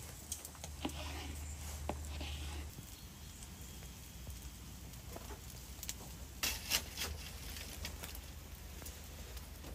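A few cleaver chops on a wooden board in the first couple of seconds, then a charcoal fire crackling softly under a whole roasting sheep, with a cluster of sharp pops a little past the middle.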